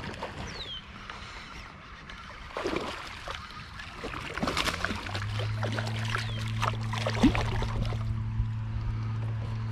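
A hooked fish splashing and thrashing at the surface as it is reeled in beside a kayak, with scattered water splashes and clicks. About halfway through a steady low hum comes in and stays.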